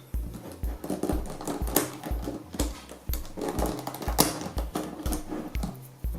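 Background music with a steady beat of about two deep pulses a second, over sharp plastic clicks of 4x4 Rubik's cube centre pieces being squeezed into place.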